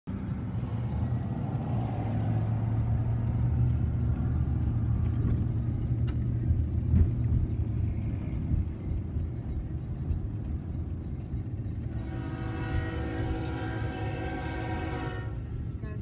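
Low engine and road rumble inside a moving car. About twelve seconds in, a locomotive air horn sounds one steady chord for about three and a half seconds as the train nears the grade crossing.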